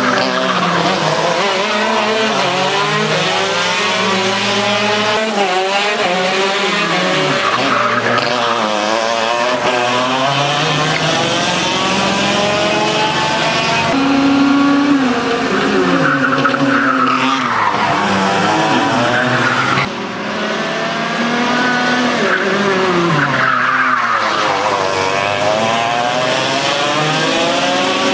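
Racing go-kart engines revving hard, the pitch climbing and dropping again and again as the karts accelerate and lift through the corners, with more than one engine heard at once.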